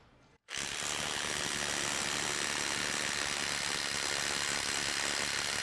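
Milwaukee M18 Gen 3 (2853) impact driver, converted to a half-inch anvil, hammering steadily against a torque test rig. It starts about half a second in, runs for about five seconds and then stops abruptly.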